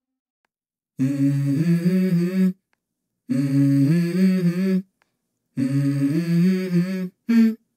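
Background music: a wordless hummed vocal melody in three phrases of about a second and a half each, separated by short silent gaps, with a brief fourth note near the end.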